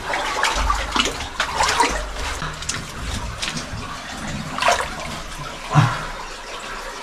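Water splashing and sloshing as a caver crawls through a shallow cave stream, with the stream running over rock. The splashes come irregularly, with a couple of louder ones about five and six seconds in.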